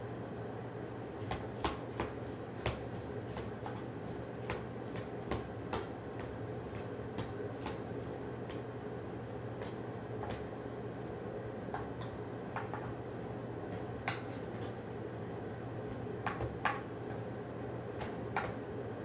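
A cockatoo's beak clicking and tapping as it works at food: sharp, irregular clicks about once a second, loudest a little past the middle, over a steady low hum.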